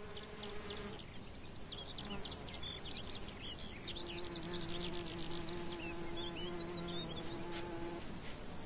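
A flying insect buzzing, its hum holding steady for a few seconds in the middle, against a field background of many short, high chirps.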